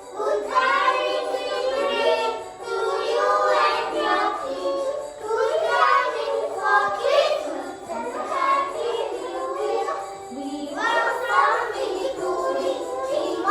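Young children singing a Christmas song.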